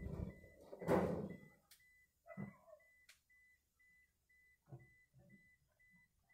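A faint, high electronic beep repeating at an even pace of about three times a second, with a louder burst of noise about a second in and a few fainter knocks and rustles.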